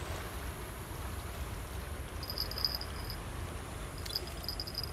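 An insect trilling in high-pitched pulsing bursts from about two seconds in, over a steady low rumble.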